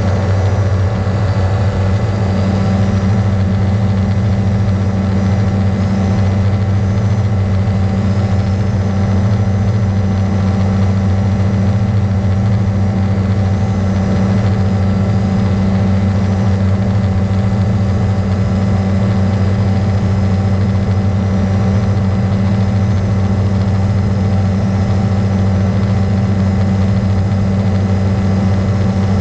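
Beaver RX 550 ultralight's engine and pusher propeller running steadily in level flight, with an even, unchanging pitch.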